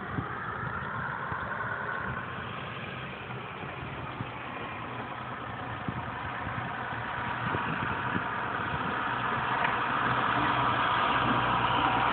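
An engine running steadily with a low hum, growing louder over the last few seconds.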